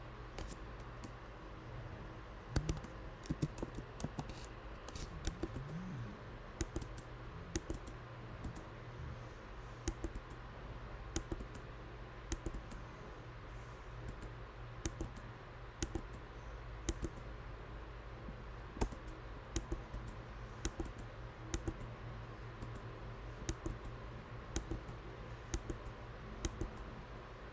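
Keystrokes on a computer keyboard: scattered, irregular taps and short runs of key presses over a steady low hum.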